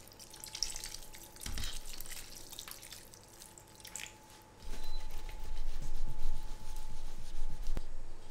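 Water poured from an electric kettle, trickling and splashing into a metal baking pan of beans in sauce for about four seconds. After a short pause comes a louder low rumble of the pan being handled, ending sharply near the end.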